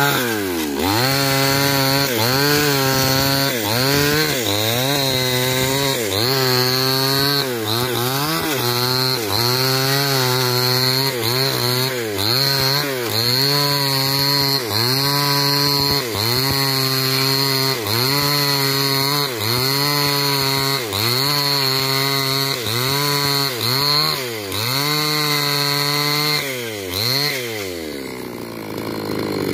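Gasoline chainsaw ripping lengthwise through an old coconut-palm log. The engine pitch swells and sags about every second and a half as the saw works through the cut, dipping lower near the end before revving up again.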